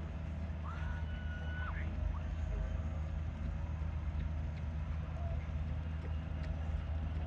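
Distant fairground din across an open field: a steady low rumble of ride machinery, generators and traffic. A brief high whistle-like tone sounds about a second in.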